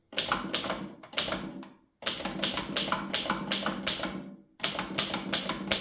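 Early Stoewer Elite portable typewriter being typed on: quick runs of keystrokes with typebars striking the platen, broken by two brief pauses. The cleaned typebars are working without jamming.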